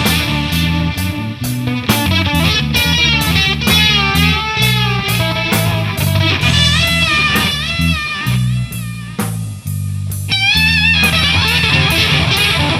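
Distorted electric guitar soloing with wide string bends and vibrato over bass guitar and a drum kit, played as a live rock trio. The guitar briefly thins out a little before ten seconds in, then comes back with more bent notes.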